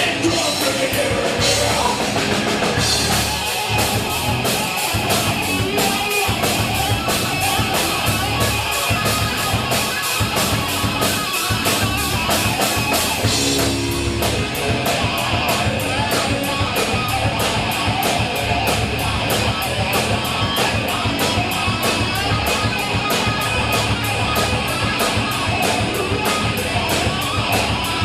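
Rock music with a drum kit and electric guitar playing a fast, steady beat.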